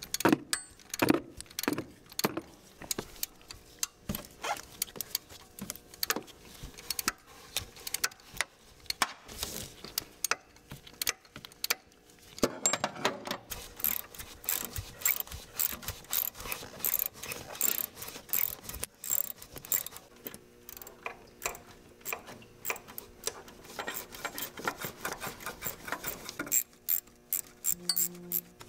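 Hand ratchet clicking as the 10 mm water pump bolts are backed out. The clicks come in scattered short runs at first, then in a long fast run from about halfway through until shortly before the end.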